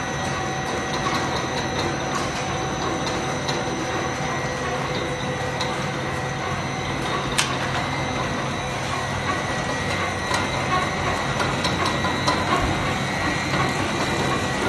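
Corn chip production-line machinery running: a food extruder, sheet rollers and cutter driven by electric motors, giving a steady mechanical noise with a few constant high whines. A single sharp click about seven seconds in.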